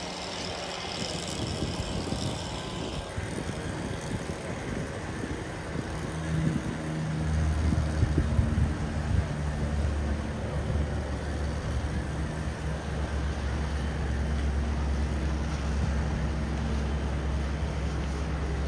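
Jet ski engine running at speed: a steady low drone that comes in after the first few seconds and holds, along with splashing water and wind on the microphone.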